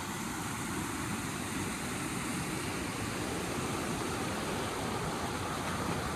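Floodwater rushing steadily along a swollen creek: an even, unbroken rushing noise.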